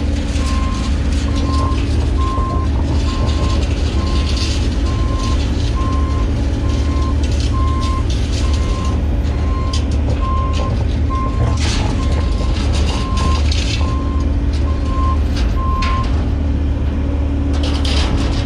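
Backup alarm beeping about once a second over a diesel engine running steadily, the beeping stopping a couple of seconds before the end: a work vehicle reversing.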